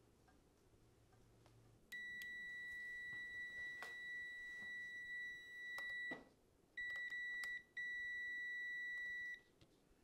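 UEI DL479 clamp multimeter's continuity beeper sounding a steady high-pitched tone: one long beep of about four seconds, then after short breaks a brief beep and a longer one. The beep signals a closed circuit through the thermostat, whose cooling contact has closed at the end of its built-in five-minute compressor delay.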